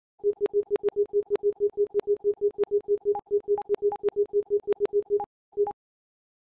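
Rapid electronic beeping: one short tone repeated evenly about six or seven times a second for five seconds, then a single last beep about half a second later.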